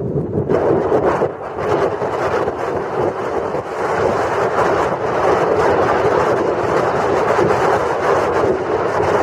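Dacia Duster driving off-road: a constant noisy engine-and-tyre drone with quick irregular rattling, and wind buffeting the microphone.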